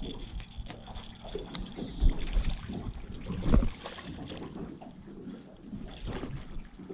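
A blue catfish splashing at the surface as it is netted beside an aluminium jon boat, over wind on the microphone, with a few dull thumps, the loudest about two and three and a half seconds in.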